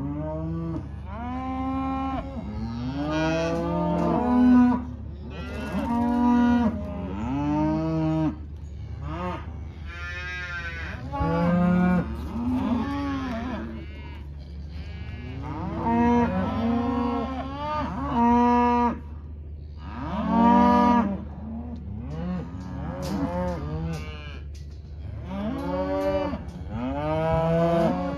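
Cows and calves bawling over and over in the pens, long mooing calls one after another and often overlapping, while the calves are being sorted off the cows.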